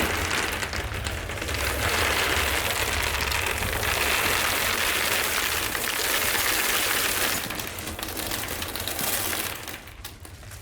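A pile of small hard-coated peanut butter candies (Reese's Pieces) pouring and spilling out of a piñata, a loud dense pattering of many tiny clicks that thins out near the end.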